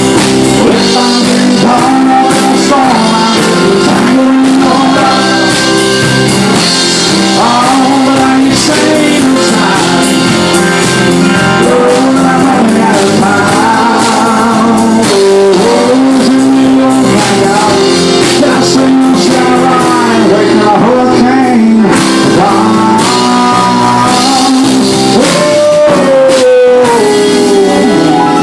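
Country-rock band playing loudly: drums and guitars, with a melodic lead line bending over the chords.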